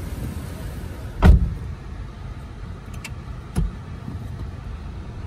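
Steady low rumble of a car idling, heard from inside the cabin while the car waits in a queue. A loud, heavy thump comes about a second in, and a smaller one a couple of seconds later.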